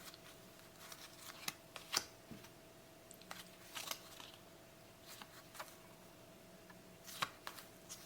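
Paper trading cards being handled and flicked through, faint scattered clicks and rustles of card against card. A faint steady hum runs underneath.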